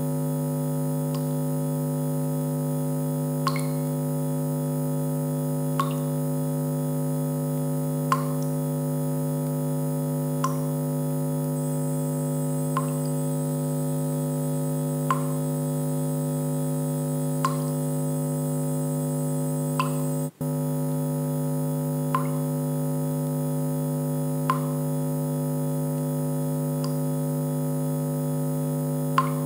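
Steady electronic drone of several held tones, with a short soft blip about every two and a third seconds; it drops out for an instant about twenty seconds in.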